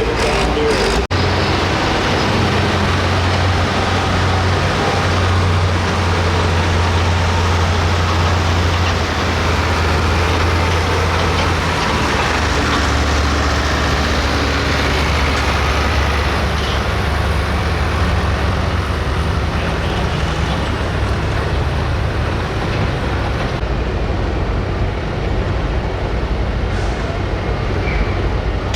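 Hot farm class pulling tractor's 510 cubic inch engine running hard and steady under load, a heavy continuous drone. Its pitch drops slightly about halfway through, and the upper hiss fades near the end.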